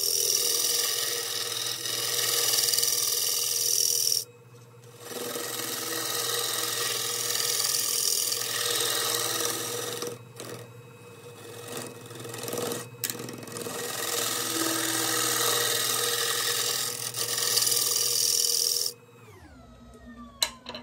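Negative rake scraper cutting the inside of a spinning ash bowl on a wood lathe, a continuous harsh scraping over the lathe's steady hum, lifted off briefly a few times. Near the end the cutting stops and the lathe winds down with a falling whine.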